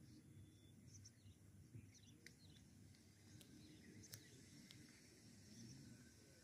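Near silence: faint open-air background noise with a few faint, short bird chirps.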